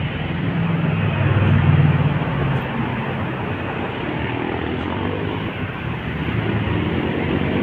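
Busy road traffic: motorcycles and a coach bus passing close by, with a steady low engine rumble that swells about two seconds in.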